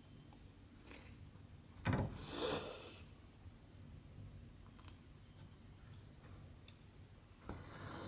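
Needle and embroidery thread pulled through stiff 14-count cross-stitch fabric: a soft knock followed by a short rasping rub about two seconds in, and another rub near the end.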